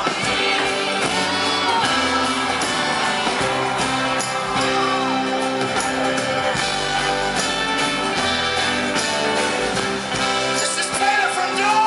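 Live rock band playing the instrumental opening of a song from within a concert crowd, with a few fans whooping and shouting over it.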